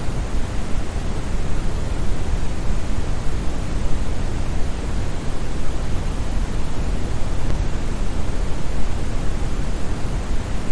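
Steady brown noise: a smooth, deep rushing hiss with most of its energy in the bass and little in the treble, like a large waterfall. It is unchanging throughout.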